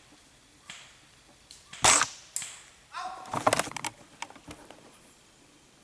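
Well MB4401 L96 spring-powered airsoft sniper rifle firing one shot, a single sharp crack about two seconds in. About a second later comes a quick run of metallic clicks and rattles, the bolt being worked to cock the spring for the next shot.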